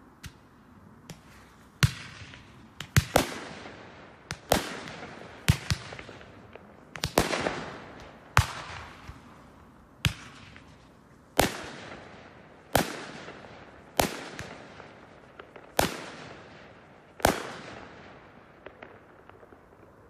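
Fireworks going off: a string of loud, sharp bangs, mostly about a second or so apart, each echoing away. The first two are faint, and a few faint crackles follow near the end.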